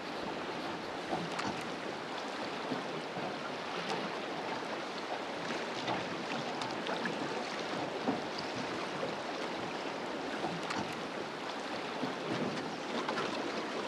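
Fast river water flowing around a drift boat: a steady rushing hiss with scattered small splashes and ticks.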